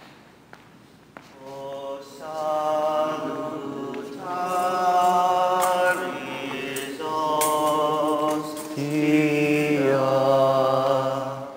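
Voices singing a slow chant-like hymn for Eucharistic adoration, coming in about a second in and going in long held phrases with short breaks.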